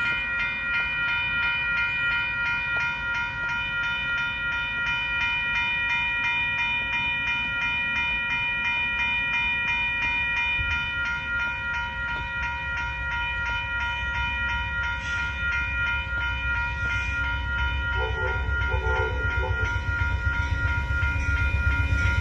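Railroad grade-crossing warning bell ringing steadily as a train approaches. In the last few seconds the low rumble of the oncoming Amtrak Texas Eagle grows louder beneath it.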